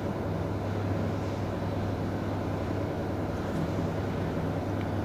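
Steady low hum with a hiss of background noise, no ticking or other events.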